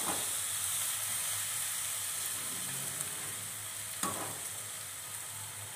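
Onions, green chillies and ginger-garlic paste sizzling steadily in oil in a non-stick kadai while being stirred, the stage where the paste is sautéed until its raw smell goes. The slotted spatula scrapes across the pan at the start and again about four seconds in.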